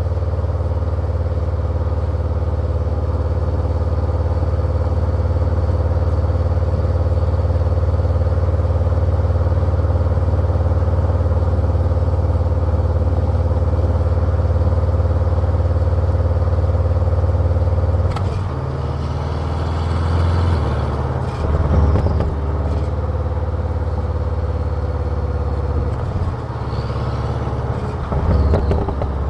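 Car exhaust note recorded close to the tailpipe: a steady engine drone for about eighteen seconds, then the note changes and rises and falls, with a couple of louder surges near the end.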